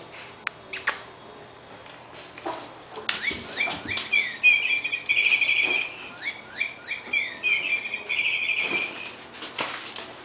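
Bird-like chirping: a phrase of quick curved chirps ending in a trill, heard twice over about six seconds. A few light knocks come before it.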